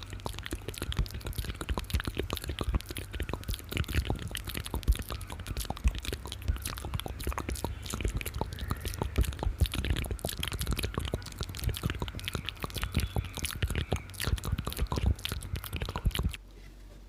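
Close-miked ASMR trigger sounds: a dense, irregular stream of crackly clicks and pops that stops abruptly about 16 seconds in.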